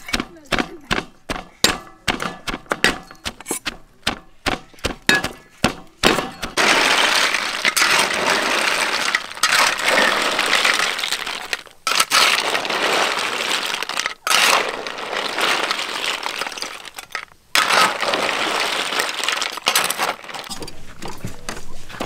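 A wooden pestle pounds a lemongrass-and-garlic paste in a mortar, about two strokes a second, for the first six seconds. Then a loud, steady frying sizzle from a pan of snails, broken by a few short gaps.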